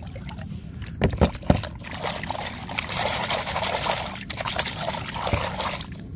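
A plastic basin dipped into lake water, a few knocks about a second in, then a hand sloshing and squishing watery rice-bran groundbait in the basin for several seconds.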